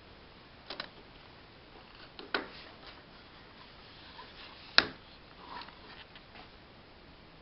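Scattered sharp plastic clicks and knocks as a disassembled Opel Astra G heater control panel is handled and turned over, with one louder click about two thirds of the way through.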